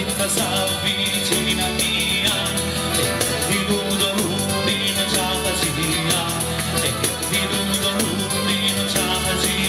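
Live Calabrian tarantella folk music: a fast, driving tambourine rhythm over strummed acoustic guitars.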